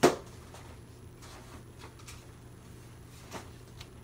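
A single sharp thump right at the start, then a few faint, scattered clicks and rustles of objects being handled.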